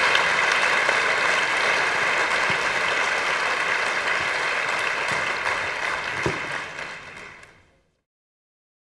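A large audience applauding. The applause fades out near the end.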